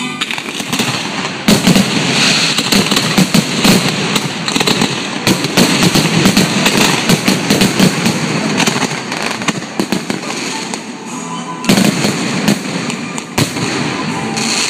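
Fireworks going off in a dense barrage: many overlapping bangs and crackles, with loud blasts about a second and a half in and again near the end.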